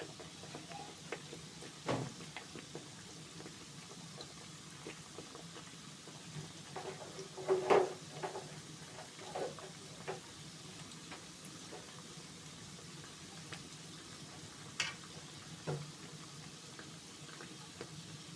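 Mandazi dough frying in hot oil, a steady sizzle, with a few short clicks and knocks of a utensil against the pan, the loudest about 8 and 15 seconds in.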